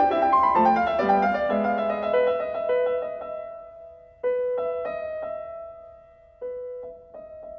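Background piano music: a run of quick notes that fades away, then two struck chords about two seconds apart, each left to ring out, and quick repeated notes starting near the end.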